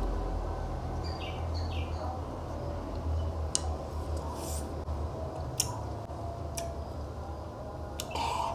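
Close-miked eating sounds of someone sucking on and chewing lime wedges: a few sharp lip smacks and brief wet sucking noises, over a steady low hum. Faint short chirps come about a second in.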